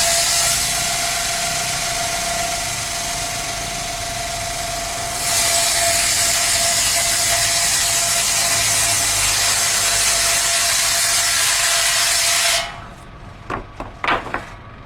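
Sawmill's power saw cutting through a coconut log, a loud steady sawing noise over a constant whine. The noise eases for a few seconds, comes back at full strength, and stops abruptly near the end, followed by a few light knocks.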